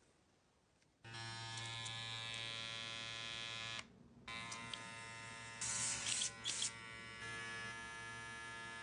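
Babyliss electric hair clipper switched on and running with a steady buzzing hum. It is switched off for about half a second, then on again. A few brief louder noisy bursts come partway through the second run.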